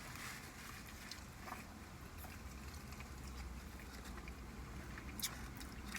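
Faint eating sounds: quiet chewing with a few small clicks and smacks, over a low steady hum.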